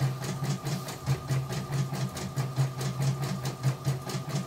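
CNY E960 computerised embroidery machine stitching a test design: a fast, even beat of needle strokes over a steady motor hum. It is running smoothly with no trouble after repair of a jam.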